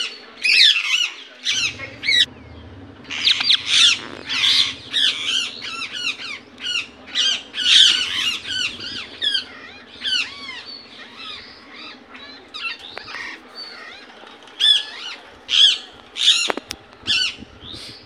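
Indian ringneck parakeet calling in its natural voice: rapid runs of short, high-pitched, sliding notes in bursts, busiest about three to five and seven to nine seconds in and again near the end.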